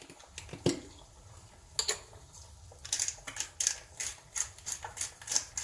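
Hand pepper mill grinding black pepper: a fast run of dry ratcheting clicks, about five a second, starting about three seconds in, after a couple of single clicks.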